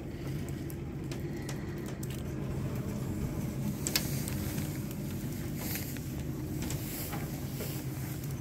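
Steady low mechanical hum of a modified window-washer lift descending on its cables, with scattered light ticks and taps, the sharpest about four seconds in.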